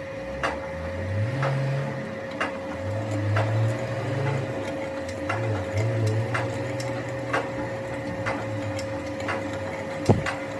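Metalworking lathe running: a steady hum with a light tick about once a second, and one sharp knock near the end.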